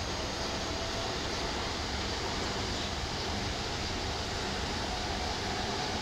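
Steady outdoor background noise with a low rumble and a faint steady whine.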